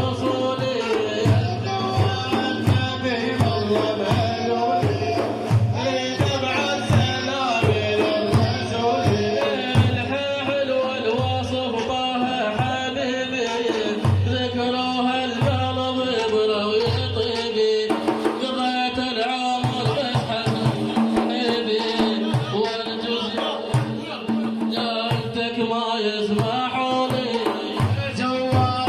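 Middle Eastern music: a steady hand-drum beat under a pitched melody line, with no words made out.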